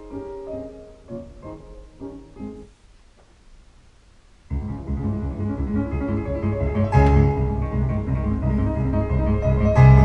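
Recorded music played through a hi-fi system's loudspeakers: a few sparse piano notes, a break of about two seconds, then a louder, fuller piece with deep bass starts suddenly about four and a half seconds in, with two sharp hits later on.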